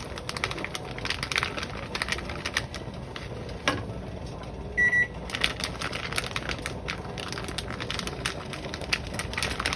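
Spoon clicking and scraping in a pot as shredded cheese is stirred into a cream sauce, with a single short electronic beep from a kitchen appliance about five seconds in.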